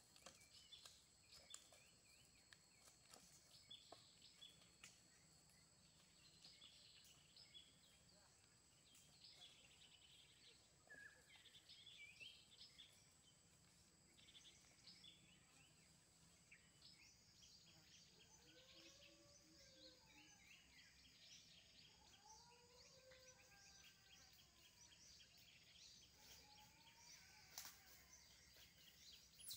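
Faint rural ambience: many small bird chirps and a steady high insect buzz that stops about halfway through, with a few lower arching calls in the second half.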